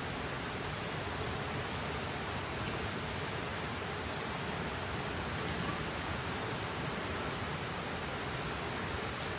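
River water rushing in a steady, even roar of noise.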